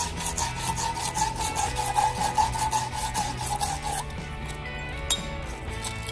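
Sand cloth scuffing the end of a copper pipe by hand, quick back-and-forth rasping strokes several times a second, cleaning the copper bright for flux and solder. The strokes die away about four seconds in.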